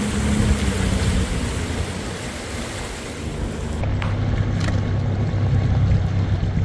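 Suzuki outboard motor running steadily as a low hum, under a hiss of wind and water; about four seconds in the hum drops lower and the hiss eases.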